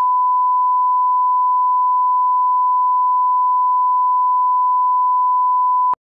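Steady 1 kHz line-up reference tone, the test tone that runs with colour bars to set audio level: a single loud pure beep held at one pitch that cuts off suddenly near the end.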